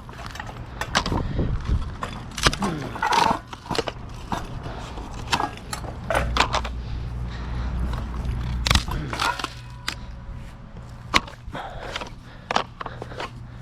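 Scrap metal pieces clanking, scraping and rattling as they are handled and stacked onto a load, a run of irregular knocks with a steady low hum underneath.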